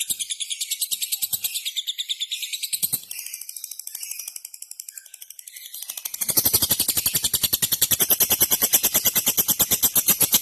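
Lovebird chattering in a long, unbroken run of rapid shrill notes, the 'macet total' song used as a lure to set other lovebirds calling. It thins to high notes alone at first, then comes back fuller and louder about six seconds in.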